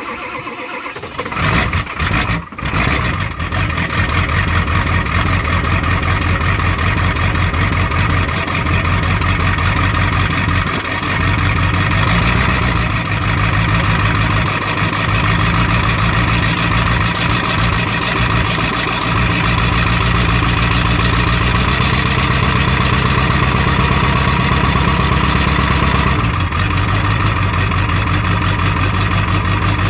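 Ford 7.3-litre V8 diesel cold-starting in about 10° weather without its block heater plugged in: it is uneven for the first few seconds, then settles into a steady idle that shifts pitch a few times.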